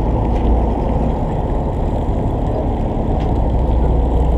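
The fishing boat's engine running steadily, a continuous low, muffled hum with no change in pitch.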